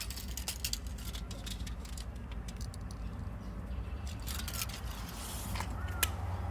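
Steel tape measure being pulled out and handled against a wall: a run of clicks and rattles, then a second burst about four seconds in, with a steady low rumble underneath.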